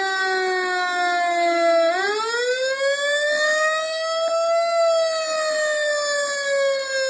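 Fire truck siren wailing in one unbroken tone. Its pitch slides slowly down, climbs quickly about two seconds in, then slowly falls again.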